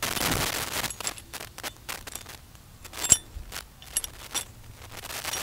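Steel wire rope cable and a U-bolt wire rope clip being handled: a scraping rustle at the start, then a scatter of small metal clicks and taps, the sharpest about three seconds in.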